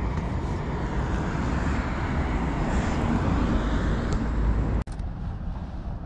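Steady low rumble of outdoor background noise, broken by an abrupt cut about five seconds in, after which a somewhat quieter rumble continues.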